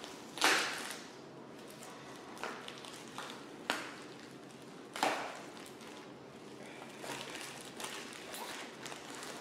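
Packing tape being ripped off an over-taped parcel: two loud rips, about half a second in and about five seconds in, with smaller rustles and a sharp click between them and crinkling packaging near the end.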